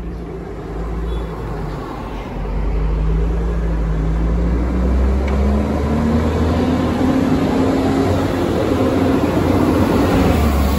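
Bus engine pulling away and accelerating, its note getting louder about two seconds in and then rising steadily in pitch.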